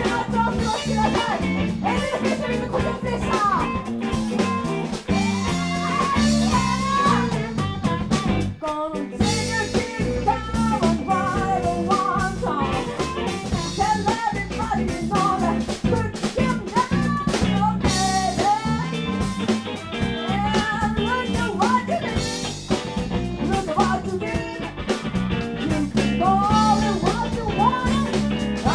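Live blues band playing: a woman singing over harmonica, electric guitar and electric bass, with a brief break in the music about eight and a half seconds in.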